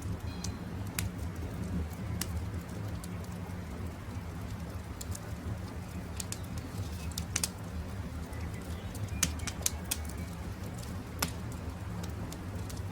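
Campfire crackling, with scattered sharp pops over a steady low rumble, and birds calling faintly in the background.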